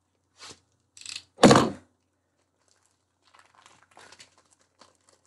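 Packaging being worked open by hand: short rustles and rips, with one louder sharp rip about a second and a half in, then faint crinkling.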